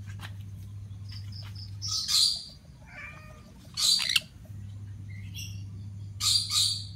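Conures calling: a few short high chirps, then three harsh screeching bursts, about two seconds in, about four seconds in, and near the end.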